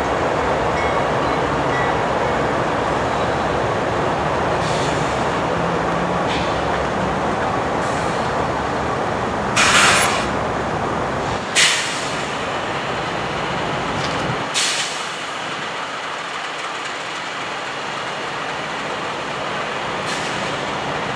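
CSX diesel locomotives idling with a steady rumble, broken by several short, sharp air hisses, the loudest about ten and twelve seconds in.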